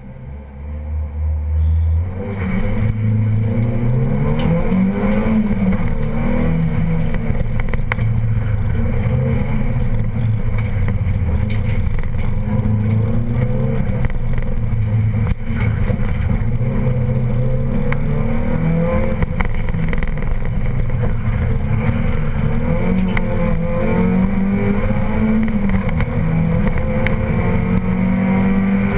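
Opel Astra GSi rally car's four-cylinder engine heard from inside the cabin: held at a low steady note at first, then about two seconds in the car launches and the engine revs hard, rising and falling repeatedly through gear changes, with road and tyre noise underneath.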